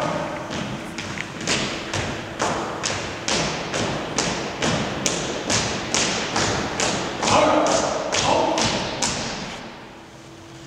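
Marching footsteps of a color guard in unison: hard-soled dress shoes striking a hard floor in a steady beat of about two and a half steps a second, ending about nine seconds in as the guard halts. Two brief shouted drill commands come near the end.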